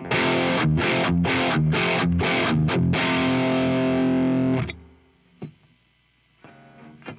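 Electric guitar through an MXR Duke of Tone overdrive pedal, distorted, playing a riff of short, chopped chords, then a held chord that rings for about a second and a half before it is muted. After a brief lull with a faint click, the riff starts again near the end.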